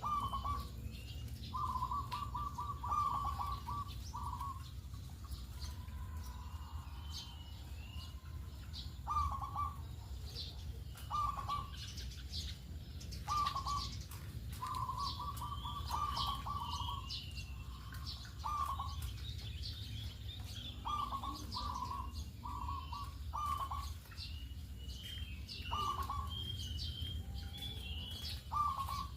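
Zebra dove (perkutut) cooing: about a dozen short, trilled coo phrases repeated with gaps between them. Smaller birds chirp higher in the background, over a steady low hum.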